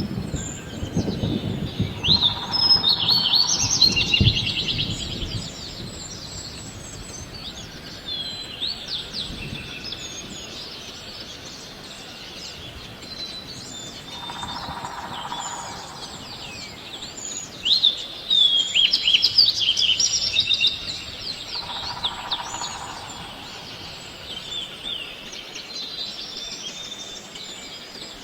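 Small birds chirping in quick, high-pitched bursts, with two louder clusters of rapid twitters, one a couple of seconds in and one past the middle. A softer mid-pitched call repeats every several seconds beneath them.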